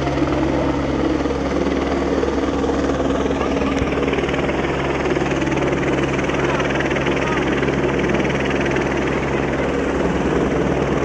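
Police rescue helicopter hovering overhead with a rescue line lowered, its rotor and engine running steadily.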